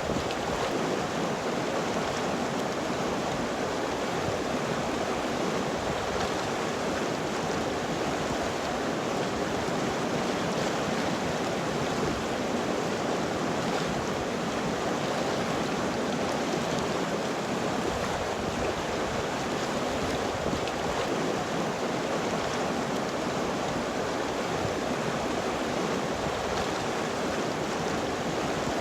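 River water flowing: a steady, even rush of running water.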